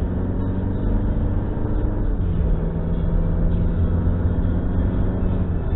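Steady road noise inside a moving car: low tyre rumble on the pavement with a constant engine hum, the hum's pitch shifting slightly about two seconds in.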